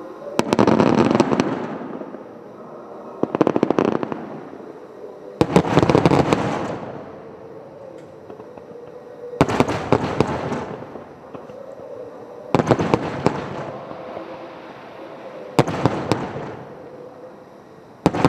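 Aerial firework shells bursting in succession, seven loud bangs about every two to four seconds. Each bang trails off in a crackling rumble over a second or two.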